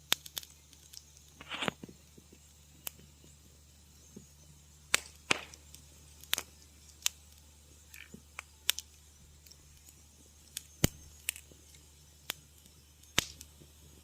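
Wood fire crackling in a fireplace: irregular sharp snaps and pops, about one a second, some louder than others, over a faint low steady rumble.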